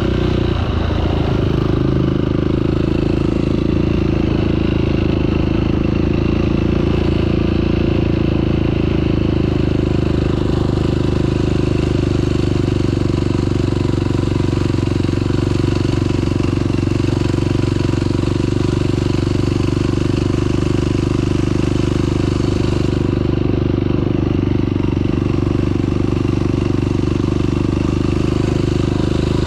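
Off-road vehicle engine running on a trail ride, its note shifting about a second in and then holding at a steady speed.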